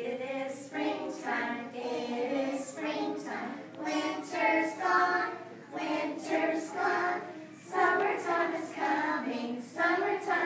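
A class of three- and four-year-old children singing a song together in unison.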